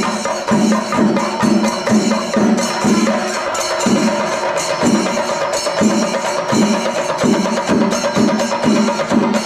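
Percussion music: deep drum strokes about twice a second under a dense, high metallic clatter.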